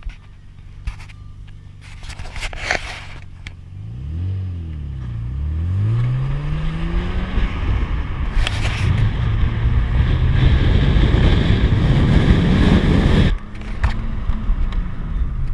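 Toyota 1G-FE inline-six engine running at idle, then revved. Its pitch dips and climbs about four seconds in, then it runs loud and high for about five seconds before dropping back to idle suddenly.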